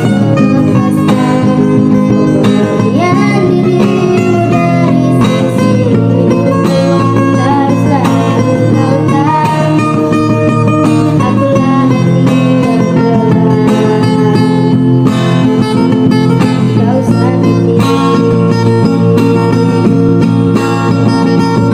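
Fingerpicked guitar playing a melodic accompaniment in the local North Kulisusu style, with a voice singing a melody over it at times.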